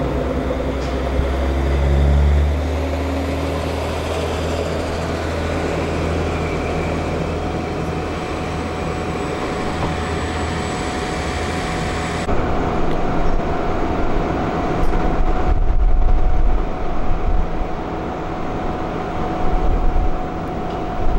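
Diesel railcar pulling away from the platform: its engine note rises and grows louder over the first couple of seconds as it accelerates, then runs steadily as the train moves off.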